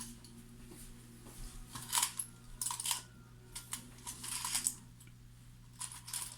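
Small steel parts of an AR-15 bolt carrier group clicking and clinking against each other as it is handled and taken apart, in several short clusters of light metallic clicks.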